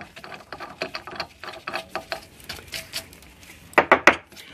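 A hand tap being worked back and forth by hand in a freshly drilled hole in a Honda H22 thermostat housing, making small irregular metallic clicks and scrapes as the chips break. A few louder clinks come about four seconds in.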